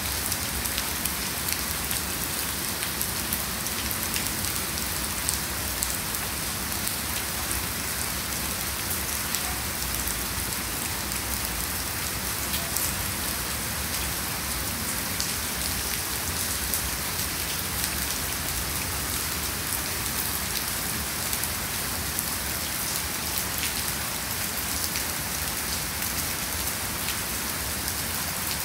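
Heavy rain falling steadily, a dense hiss with many small drop ticks.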